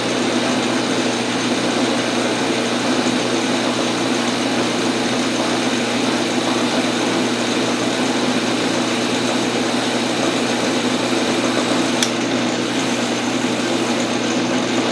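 Metal lathe running at steady speed with a constant hum, its chuck spinning while a tool bit turns down the shank of a slitting-saw arbor. There is a single sharp click about twelve seconds in.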